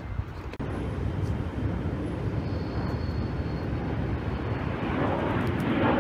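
Wind buffeting the phone's microphone, a steady rough rumble that grows a little louder near the end.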